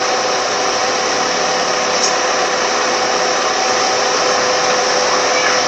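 Car air-conditioning blower running steadily: an even rushing of air with a faint constant hum.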